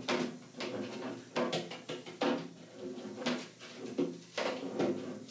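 A brush scrubbing and knocking inside the long hollow plastic body of a tower humidifier, with sharp strokes about once a second. Soft background music plays underneath.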